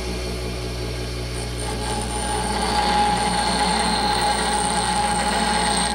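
Bench grinder running with a steady motor hum, a small part held by hand against its grinding wheel. A higher grinding whine comes in about a second and a half in and is strongest around the middle.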